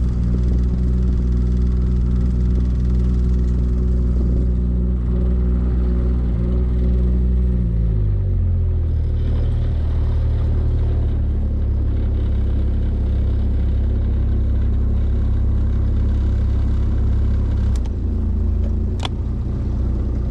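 Boat motor running steadily, then throttled back about eight seconds in, its pitch falling and settling at a lower, steady drone. A single sharp click comes near the end.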